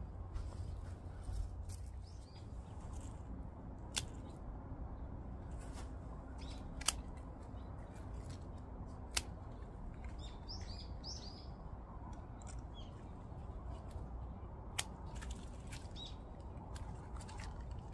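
Scissors snipping through tulip stems to deadhead faded flowers, making a few sharp snips several seconds apart. Birds chirp in the background.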